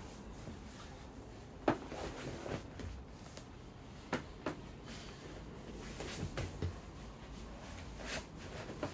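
Bodies and bare feet shifting and pressing on vinyl-covered foam mats during grappling: irregular thuds and scuffs, the sharpest a little under two seconds in.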